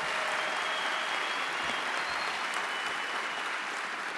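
Large audience applauding in a hall, a dense steady clapping that eases off toward the end.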